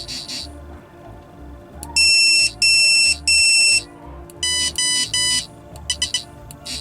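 Pathfindr social-distancing wearables beeping their proximity alert: three loud electronic beeps, then three quieter, lower-pitched beeps. The alert shows the repaired unit working again, sensing another Pathfindr within 2 metres. Background music with a steady beat runs underneath.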